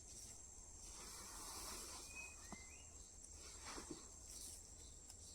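Faint outdoor ambience: a steady high, thin insect drone with a couple of brief faint chirps about two seconds in.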